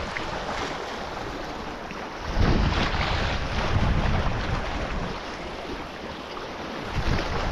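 Wind buffeting the microphone over the wash of surf, with heavier gusts about two seconds in and again near the end.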